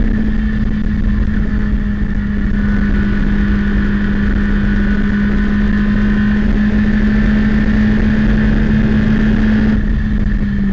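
Citroën Saxo race car's four-cylinder engine held flat out at high revs in fifth gear, heard from inside the cabin over wind and road noise. A steady, unbroken drone.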